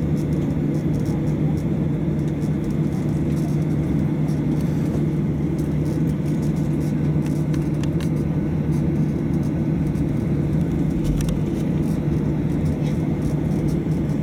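Boeing 737-800's CFM56-7B jet engines running at low taxi power, heard from inside the cabin as a steady drone with a low hum.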